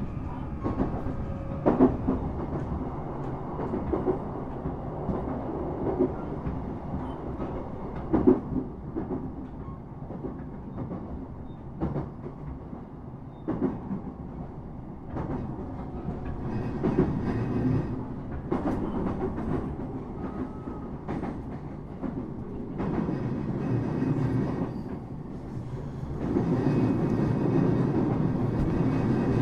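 Train running, heard from inside the passenger car: a steady rumble of wheels on rails, broken by scattered sharp clacks over the rail joints. The rumble grows louder near the end.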